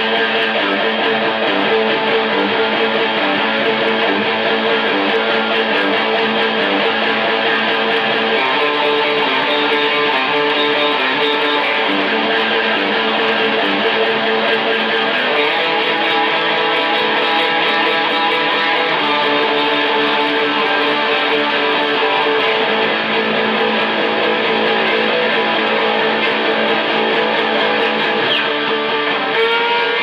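Hollow-body electric guitar being played continuously, picked and strummed notes and chords ringing without a break.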